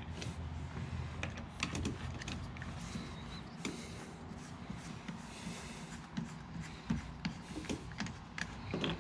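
Light handling noise: scattered small clicks and short rustles of parts being handled during assembly, over a low steady background.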